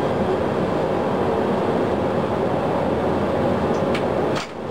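Steady rushing noise of a Boeing 737 CFM56-7 engine turning on its air starter at about 26% N2, with fuel flowing but no light-off: a no-ignition start. Near the end come a couple of faint clicks and a brief dip in the noise.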